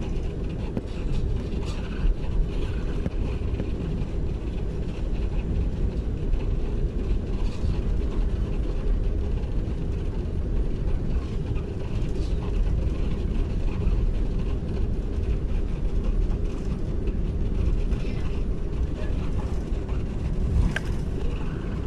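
Steady low rumble inside an airliner's cabin as it taxis after landing: engines at idle and the wheels rolling over the concrete taxiway.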